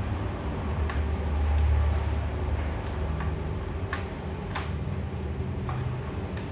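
About six light, scattered clicks, likely the parts of a Wincor ATM note cassette being handled, over a steady low hum.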